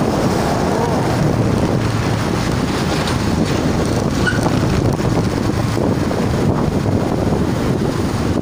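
Car driving in traffic, heard from inside the cabin: a steady rush of road and wind noise.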